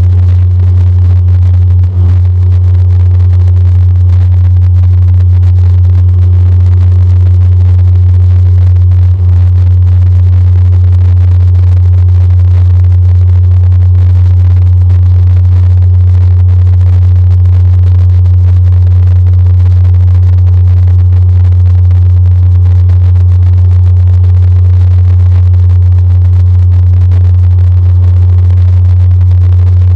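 DHC-8-Q400 turboprop heard from the cabin beside the engine while climbing out after takeoff: the propeller drone, a loud, steady low hum with fainter higher tones above it.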